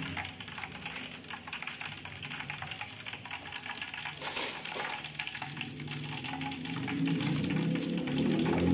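Hands rubbing and pressing raw chicken pieces into dry breadcrumbs on a plastic plate: a steady fine crackly rustle, with a short sharp scrape about four seconds in. Music starts to come in near the end.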